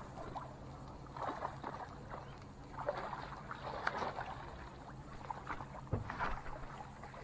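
A small hooked fish thrashing at the water's surface beside a boat, splashing in irregular bursts, over a low steady hum.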